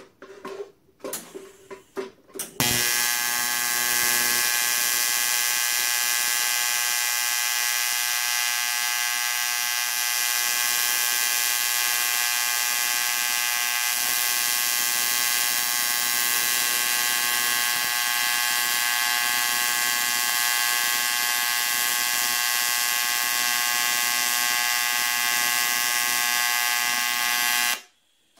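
TIG welding arc on cast aluminium, run on AC, buzzing steadily for about 25 seconds and then cutting off suddenly near the end. A few short clicks and knocks come just before the arc strikes.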